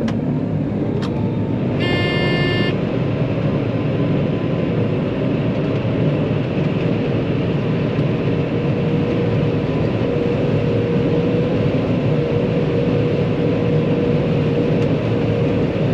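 John Deere 9500 combine running steadily under harvest load, heard from inside the cab as an even machine hum with a steady drone. A short electronic beep sounds once, about two seconds in.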